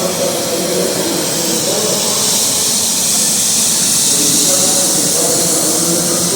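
Baby 43 compact automatic floor scrubber running as it scrubs a floor wet with plain water: a loud, steady hiss with a wavering hum beneath it.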